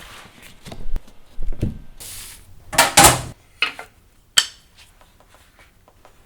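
Handling sounds from printmaking work: a run of irregular knocks, scrapes and clatters of hard tools and materials, loudest a little before midway, with a sharp click about four and a half seconds in and only faint small taps after it.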